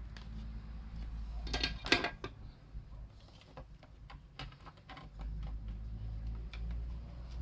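Small plastic and circuit-board parts of a mini radio being handled and fitted into its housing: a quick run of clicks and knocks about two seconds in, then scattered lighter clicks, over a steady low hum.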